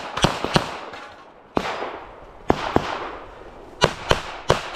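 Pistol gunfire: a quick string of three shots at the start, then single shots scattered through the rest, each with a trailing echo.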